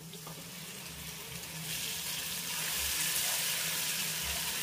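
Grated tomato sizzling in hot oil with cumin seeds and garlic paste in a nonstick kadai, stirred with a steel spatula. The sizzle builds up about a second and a half in and then holds steady.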